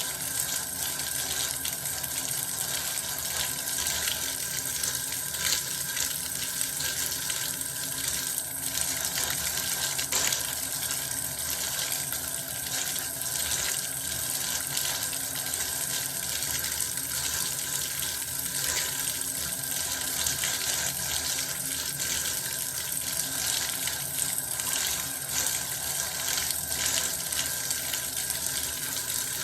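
Running bath water: a steady, unbroken stream of water pouring and splashing.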